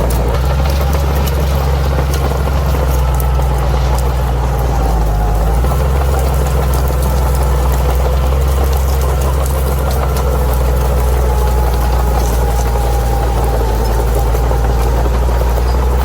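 Bulldozer's diesel engine running steadily, with a higher whine wavering above it and scattered light clicks.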